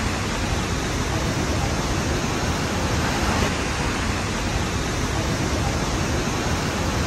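Large waterfall with a drop of about 18.5 metres, its water rushing into a rock gorge in a steady, even noise that does not let up.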